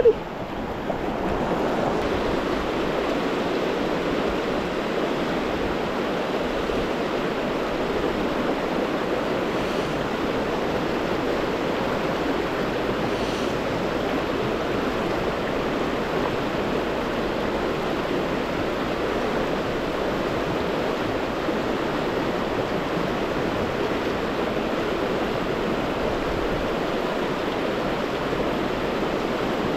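Fast water of a river rapid rushing steadily.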